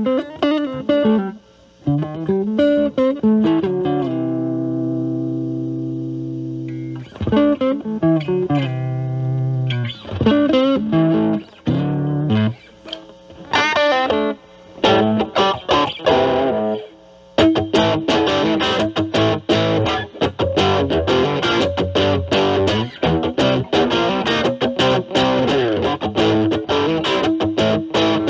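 Distorted electric guitar: a Stratocaster with single-coil pickups played through an Ibanez Super Metal mini distortion pedal, drive at 12, into a Marshall Valvestate amp's clean channel. It plays a few short phrases, then a held chord that rings and fades about four to seven seconds in. From about seventeen seconds on come fast picked runs.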